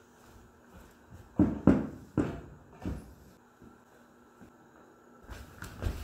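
Four knocks and thuds in quick succession from about one and a half to three seconds in, as a telescoping pole is handled against a wooden bar stool on a hardwood floor. Lighter knocks and scuffs follow near the end.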